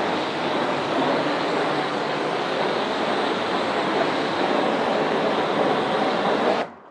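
Pressure washer jet spraying water over a motorcycle, a steady rush of spray that cuts off suddenly near the end; it is rinsing the cleaning chemicals off the bike.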